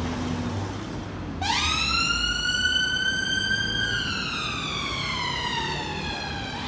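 Ambulance siren switching on about a second and a half in: a quick rise into one slow wail that climbs, then falls away over about five seconds, as the ambulance moves off on an emergency run. Road traffic rumble underneath.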